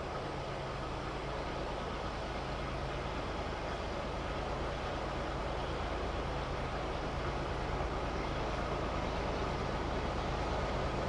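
Diesel locomotives of an approaching CSX train running in the distance. It is a steady low engine drone that grows slowly louder.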